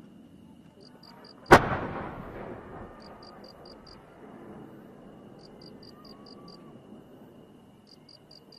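A large aerial firework shell fired from its mortar: one loud, sharp boom about a second and a half in, echoing away over the next second or so. Behind it, insects chirp in short runs of rapid pulses.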